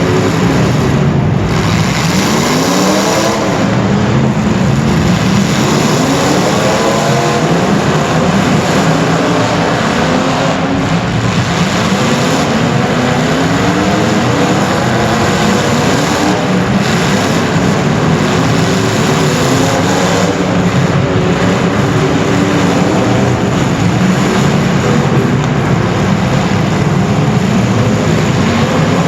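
Several racing engines running at once, their pitch rising and falling again and again as they rev up and back off through a race heat.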